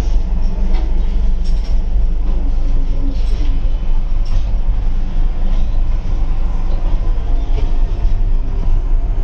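Rajdhani Express coach running on the rails, heard from inside its toilet compartment: a steady, loud low rumble with a few faint clicks and rattles.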